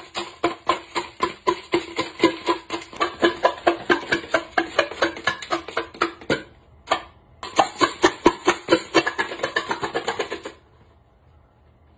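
Wooden spatula handle jabbed repeatedly into a cardboard Pringles can, crunching the potato chips inside: rapid strokes, several a second. The strokes break off briefly a little past the middle and stop about ten and a half seconds in.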